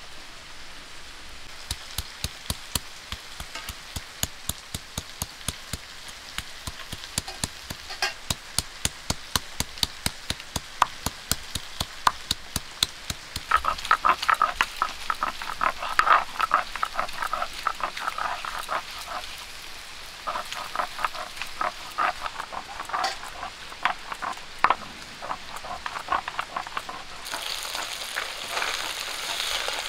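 Stone roller rocked and rubbed on a stone grinding slab (sil-nora), grinding cumin, ginger and garlic into paste: a steady run of sharp knocks, about four a second, that turns into a louder rasping scrape about halfway through. Near the end, small tangra fish sizzle as they fry in mustard oil in an iron kadai.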